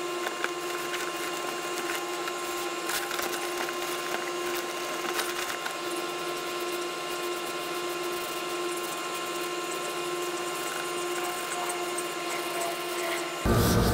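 Steady mechanical hum of a running motor, even in pitch and level throughout, with a few faint clicks or rubs.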